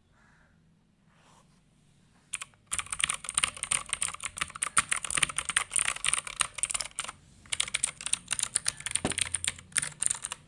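Fast typing on a Zebronics Zeb Max Pro V2 mechanical keyboard with clicky blue switches: a quick run of sharp key clicks starts a couple of seconds in, pauses briefly, then resumes until just before the end.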